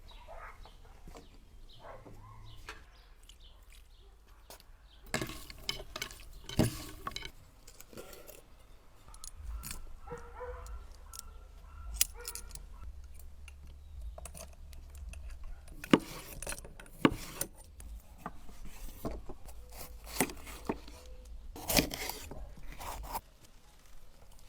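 Irregular clicks, knocks and scrapes of handling, over a faint low hum.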